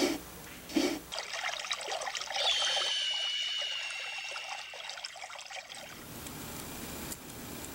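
Intro logo sound effects: two sharp hits, then a dense crackling with a high tone that dips slightly and holds for about three seconds. It ends about six seconds in, giving way to a steady, even outdoor hiss.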